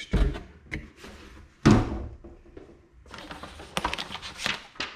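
Unboxing handling sounds from the packaging: a few dull knocks and thuds, the loudest about a second and a half in, followed by a run of lighter clicks and rustles near the end.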